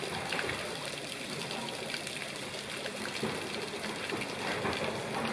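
Thin garden waterfall spilling from a rock face and splashing steadily into a pond.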